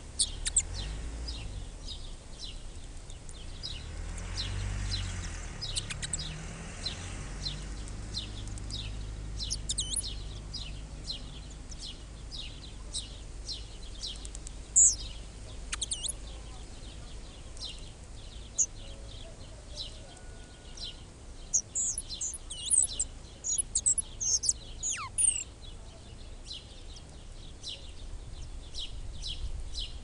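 Spotted flycatchers at the nest: short, thin, high chirps repeated a few times a second, growing louder and busier about three-quarters of the way through. A low rumble sits underneath about four to eight seconds in.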